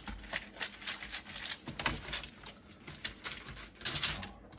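Irregular light plastic clicks and knocks from a membrane keyboard being handled as its unscrewed top housing, keys and all, is lifted off the base and membrane sheets.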